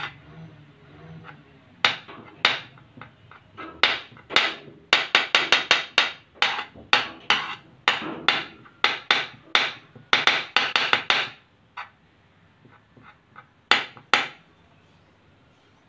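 Kitchen knife chopping Dove soap shavings on a hard tabletop: sharp knocks of the blade against the surface. A few single knocks at first, then a quick run of about three to four a second, then a pause and two more knocks near the end.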